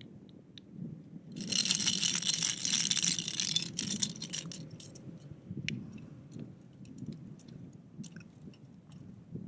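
Fishing gear being handled on a kayak: a rapid rattling scrape starting about a second and a half in and lasting about two seconds, then scattered light clicks and taps.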